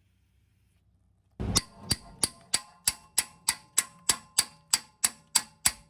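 Music with a steady clock-like tick, about three ticks a second, over held notes, starting suddenly about a second and a half in after near silence.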